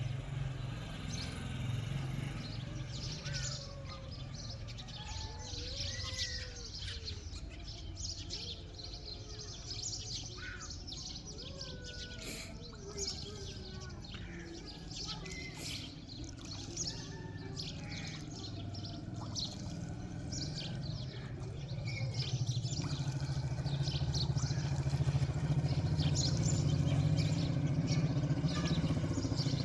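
Many birds chirping and calling at once, a dense mix of short chirps and some gliding notes. A steady low hum runs underneath and grows louder in the last several seconds.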